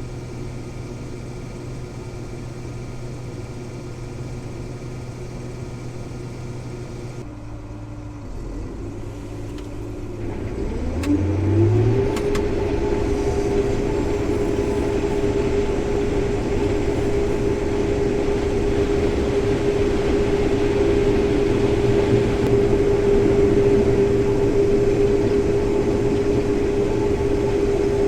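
Combine harvester engine running steadily. After a cut, it revs up over about a second and holds a steady, louder high-speed run with machinery whine.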